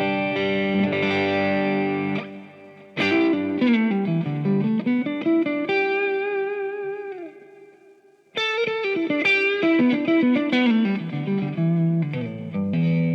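Electric guitar played through a Kemper Profiler into the Kemper Kabinet speaker with its Kemper Kone speaker simulation switched on. A held chord rings out, then a descending melodic line and a long note bent and left to fade, before a new phrase starts about two-thirds of the way in. The tone is clean to lightly driven, very real and sweet.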